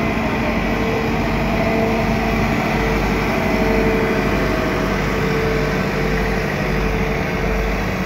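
Diesel engines of asphalt-laying machines, a double-drum road roller and an asphalt paver, running steadily with a constant engine hum and low rumble.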